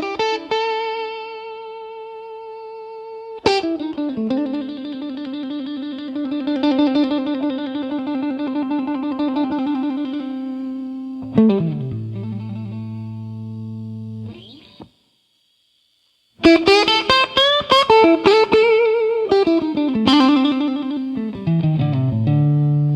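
Slow instrumental blues on guitar: long held, bent notes with a wavering vibrato, then the music drops out for about a second and a half past the middle before coming back with a quick run of plucked notes and a low slide down near the end.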